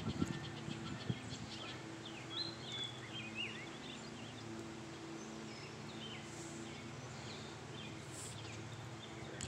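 Birds calling with a few short whistled chirps, mostly between two and three and a half seconds in, over a faint steady low hum.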